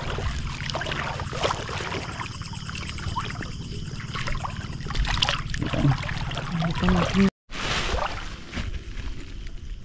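Shallow seawater splashing and trickling as someone wades and works through it, with many small sharp splashes over a low steady rumble. The sound cuts out briefly about seven seconds in.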